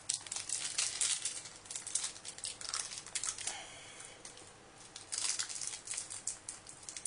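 Cellophane wrapper of a Trash Pack minifigure being crinkled and torn open by hand, a dense run of fine crackling with a short lull about four seconds in.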